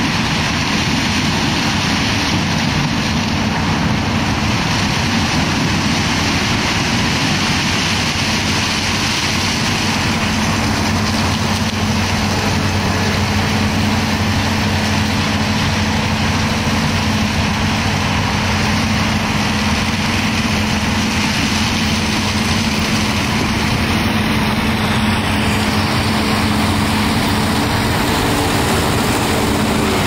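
New Holland CX8080 combine harvester running steadily: a heavy engine drone with a broad, even machinery noise over it.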